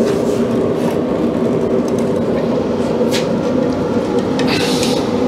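A fan running with a steady mechanical hum, with a light click about three seconds in and a short hiss near the end.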